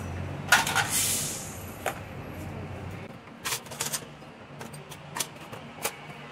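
Scrap metal and plastic parts clattering and knocking as they are picked up and dropped into a plastic tub: a loud rattling clatter about half a second in, then a string of separate knocks and clinks.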